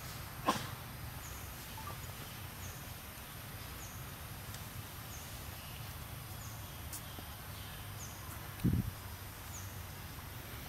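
Outdoor ambience: a short high chirp repeating about once a second over a steady low hum, with a sharp click about half a second in and a brief low thump near the end.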